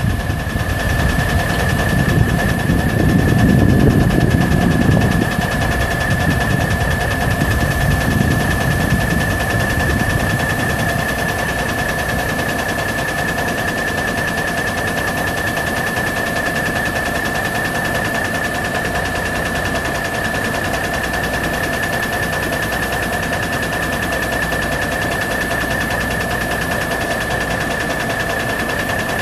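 Cummins six-cylinder turbo diesel engine of a dump truck idling steadily, with a steady high whine over it. The running swells louder for several seconds near the start, then settles.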